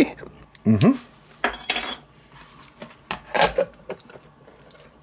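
Plastic kitchenware being handled on a wooden cutting board: a container and its ribbed lid clatter and knock a few times, about one and a half seconds in and again near the middle.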